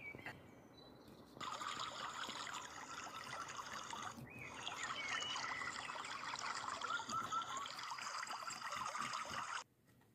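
Steady trickling water that starts abruptly about a second and a half in, breaks off briefly around four seconds, and cuts off suddenly near the end.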